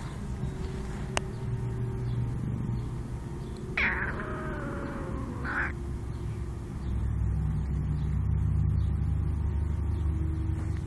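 A cat yawning aloud: one drawn-out vocal call of about two seconds, about four seconds in. It starts high, drops lower through the middle, and rises again briefly at the end.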